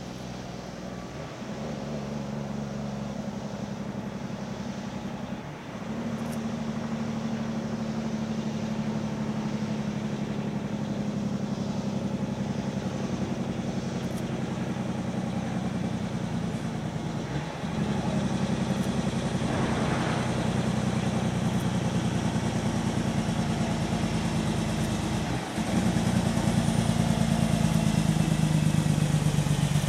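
Diesel engine of a heavily laden off-highway log truck pulling under load and coming closer, getting louder in steps. The engine note breaks off briefly four times as the driver changes gear.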